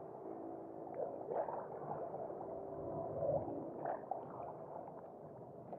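Faint, muffled whir of a Ryobi Ultrapower 1000 spinning reel being cranked as a 5 g micro popper is worked back across calm water, with a few small soft knocks.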